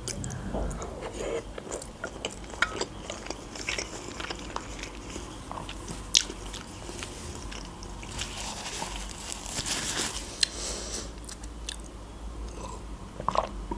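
Close-miked chewing of a mouthful of food, with wet mouth clicks and smacks. Near the end, a sip from a glass.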